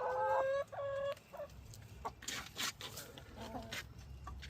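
Backyard hens calling: two drawn-out, even-pitched calls in the first second, then scattered soft clicks and a faint call later on.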